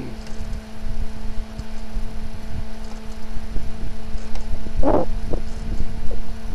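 Wind rumbling and buffeting on the microphone of a handheld camera carried outdoors, over a faint steady hum, with a brief louder sound about five seconds in.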